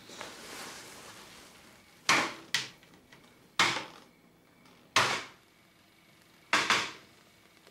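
Electric typewriter keys pressed one at a time: five separate sharp clacks at uneven intervals, the first two close together about two seconds in.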